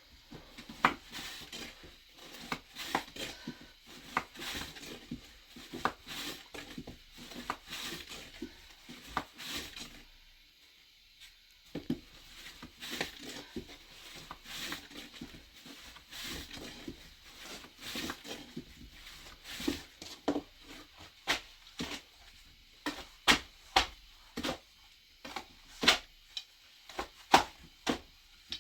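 A run of sharp knocks, taps and slaps from hands and utensils working bread dough. The strokes are irregular at first, then come as stronger, evenly spaced slaps about every second near the end.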